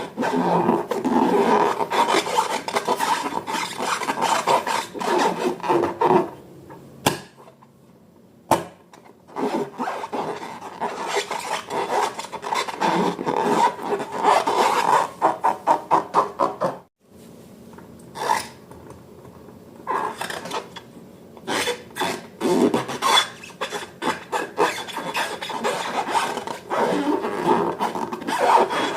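Rubber balloons and slime being rubbed and squeezed by hand: a rasping, rubbing sound in quick strokes, stopping briefly about seven and seventeen seconds in.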